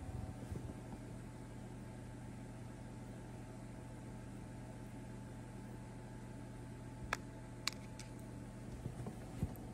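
Steady low room hum, with a few sharp clicks and knocks in the last few seconds as the kitten bumps and paws at the phone.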